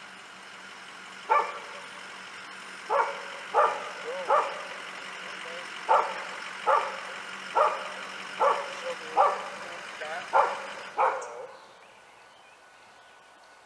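A dog barking about a dozen times, sharp single barks a second or so apart, over an engine idling steadily. The engine shuts off about 11 seconds in, just after the last bark.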